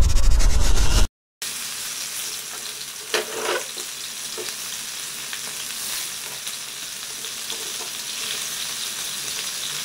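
A loud intro sound that cuts off about a second in, then masala-coated chicken pieces sizzling steadily in hot oil in a pan, with a few scrapes of a spatula stirring them.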